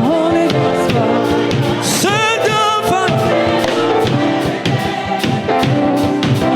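Live gospel worship music: singing with wavering, ornamented vocal runs over a band with a steady beat.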